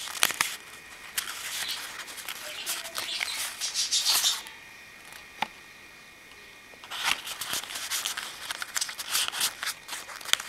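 Paper and card rustling and sliding as scrapbook recipe cards are handled and pulled from their paper pockets, in irregular crackly bursts with a pause of a couple of seconds in the middle.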